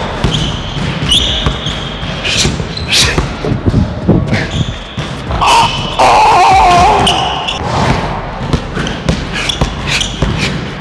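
Basketball bouncing repeatedly on a hardwood court as it is dribbled, with sneakers squeaking in short high squeals as the players cut and stop, echoing around a large gym.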